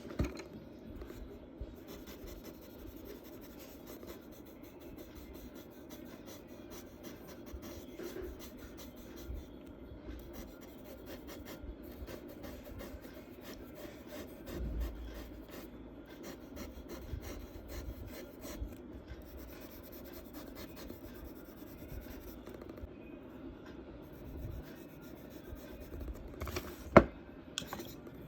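Charcoal rubbing and scratching on paper in steady, continuous strokes, with one sharp tap near the end.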